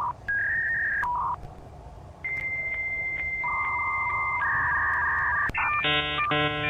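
Dial-up modem connection sound effect: a sequence of steady electronic beeps and tones, including a long high answer tone with a second tone overlapping it, then a buzzy warbling handshake near the end.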